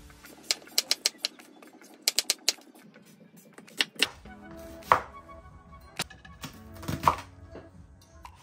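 Chef's knife chopping bell pepper and onion on a wooden chopping board: quick runs of sharp knocks on the board in the first few seconds, then slower single chops about once a second. Background music plays underneath.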